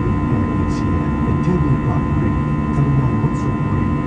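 Steady jet airliner cabin noise in flight: a continuous low engine and airflow rumble with a steady hum tone over it.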